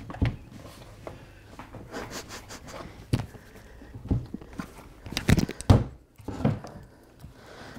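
Scattered knocks and thumps of a wooden model-railway baseboard being handled and worked into place, the loudest cluster about five and a half seconds in.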